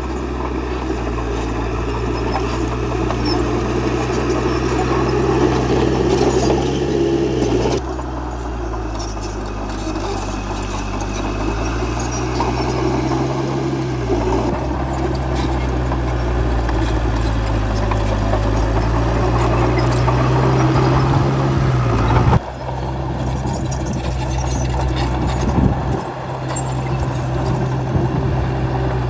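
Diesel engine of a D30H bulldozer running under varying load as it pushes soil. The engine note climbs slowly and dips abruptly about 8 seconds in and again about 22 seconds in.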